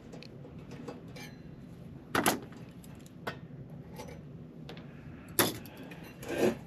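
A few sharp clicks and knocks of metal parts being handled while a power supply is taken apart, the loudest about two seconds in and again near five and a half seconds.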